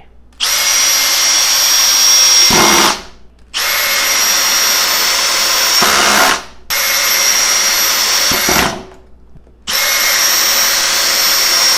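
Makita XPH-12 cordless hammer drill driving wood screws at low speed, high torque, in four separate runs of two to three seconds with a steady whine. Each run ends in a short rougher stretch as the mechanical clutch, on its lowest setting, slips and stops the screw.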